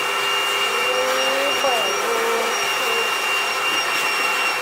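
Vacuum cleaner running steadily with a high whine, sucking up glue and drilling dust from inside a wooden speaker box.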